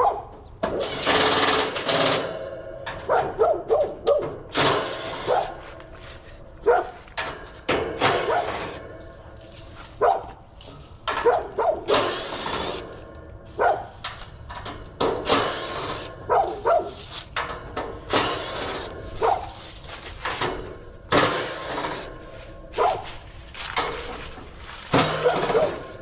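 A dog barking repeatedly in short, irregular bursts.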